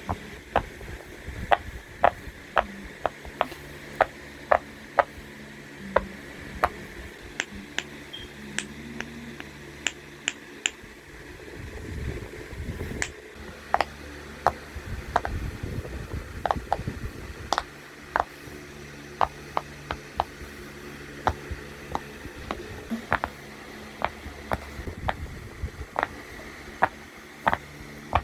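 A long series of small, sharp pops, irregular and often one or two a second, over a steady low hum.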